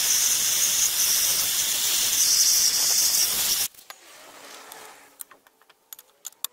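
Hand-held gas torch flame hissing steadily as it heats a crankshaft bearing holder, cutting off suddenly about three and a half seconds in. A few faint clicks follow as the part is handled.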